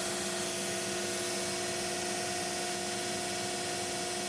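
ShopBot PRSalpha CNC router running through its automatic tool change: a steady machine whine with a hum and even hiss, no cutting.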